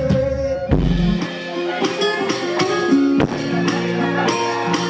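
Live band music with a drum kit, a bass drum hit near the start, and guitar playing between sung lines.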